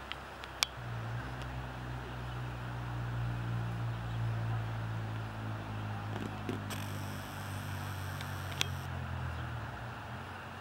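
Low, steady engine hum of a vehicle that swells and then fades over about nine seconds, with a few sharp clicks.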